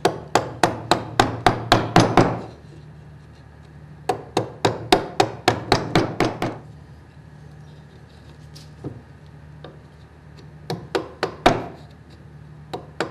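A wood chisel is tapped down into soft timber, which the woodworker thinks is Fijian cedar, while paring a cross halving joint. The sharp taps come about four a second in two quick runs of ten or so, then a few scattered taps near the end.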